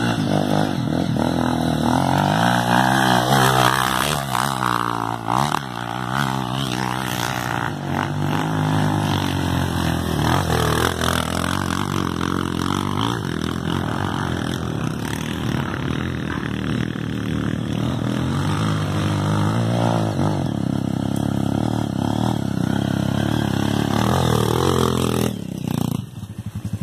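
Trail motorcycle engine running hard under load, its pitch rising and falling again and again with the throttle, and dropping off suddenly near the end.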